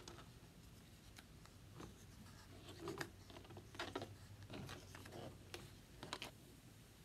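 Faint rustles and light ticks of hands handling a small cardboard shuttle with thread and tape, a few slightly louder handling noises in the middle and near the end.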